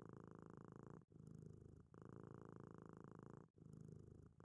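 Faint domestic cat purring, a fine steady rattle with a short break between breaths about every two and a half seconds.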